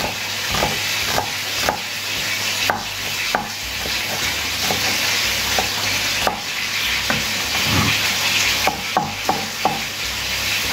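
Kitchen knife chopping a red onion on a wooden cutting board, knocking about twice a second and quickening near the end, over the steady sizzle of chicken pieces searing in oil in a frying pan.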